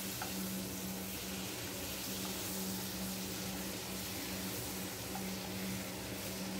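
Oil and butter heating together in a kadhai, sizzling softly and steadily as the butter melts and foams. A steady low hum runs underneath.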